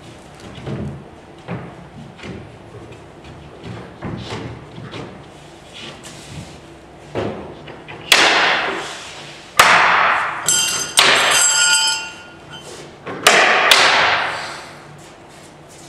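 Plywood box panel being handled and knocked into its clips: soft bumps and shuffling, then four loud sharp knocks from about eight seconds in, each ringing on, with a metallic ring after the second and third.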